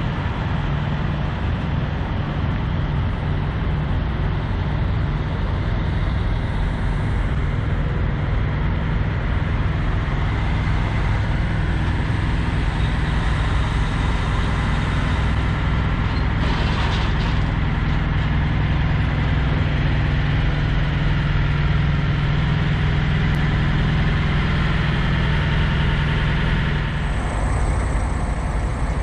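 Diesel engines of parked semi trucks idling, a steady drone, with a brief hiss about midway. The sound shifts near the end.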